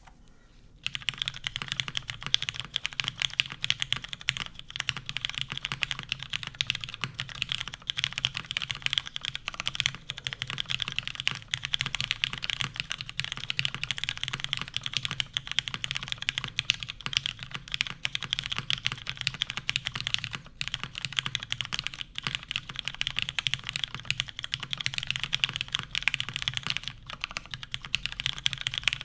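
Fast continuous typing on a custom aluminium-plate, top-mount mechanical keyboard with lubed and filmed linear Cherry MX Black switches and GMK keycaps, a dense stream of keystrokes that begins about a second in.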